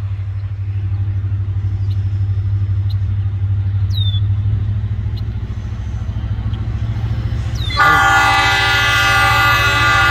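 Diesel locomotive horn of an approaching freight train sounding for a grade crossing. It comes in loud and held about eight seconds in, over a steady low rumble.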